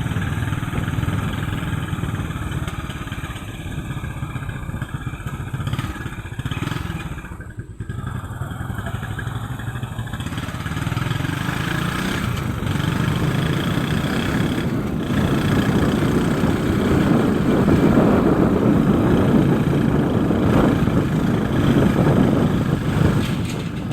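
Motorcycle engine running while riding, with a brief dip about a third of the way in and getting louder in the second half.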